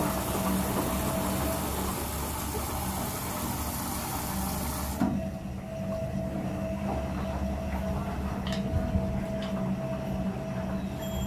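IFB washing machine running: a steady motor hum under a rushing, hissing sound that cuts off suddenly about five seconds in, after which the hum carries on with a few light clicks.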